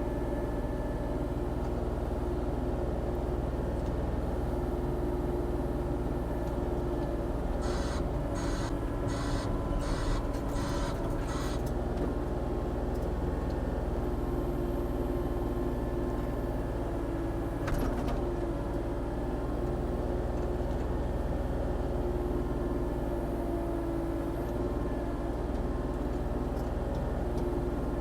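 Volvo ECR40D compact excavator's diesel engine running steadily while it digs. About a third of the way in comes a quick run of about six short, evenly spaced high-pitched pulses, and a little past the middle a single sharp knock.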